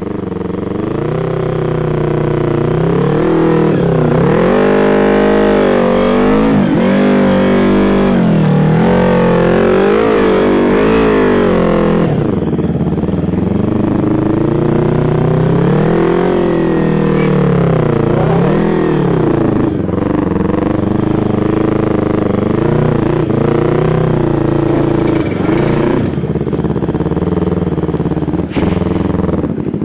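Yamaha MT-25's 250 cc parallel-twin engine running under the rider, its pitch rising and falling again and again as the throttle is opened and closed on a rough dirt track.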